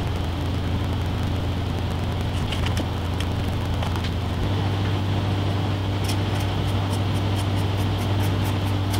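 A steady low mechanical hum, like a fan or air conditioner running in the room. From about six seconds in, faint light ticks come about four times a second.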